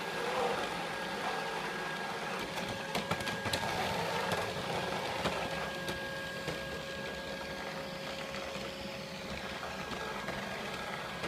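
Neato Botvac Connected robot vacuum running: a steady motor hum with a high whine, broken by irregular clicks and knocks, the weird sounds the owner is showing.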